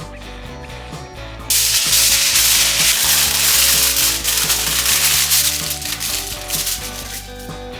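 Food sizzling loudly in a hot pan, starting suddenly about a second and a half in and dying down near the end, over background music.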